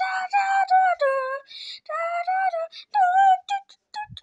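A high-pitched voice singing a tune in short held notes that rise and fall, with a brief hissing sound partway through. A short low bump comes near the end.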